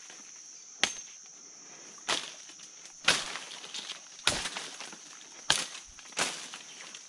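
Footsteps wading through shallow floodwater and brushing through undergrowth, six steps about a second apart, over a steady high-pitched drone.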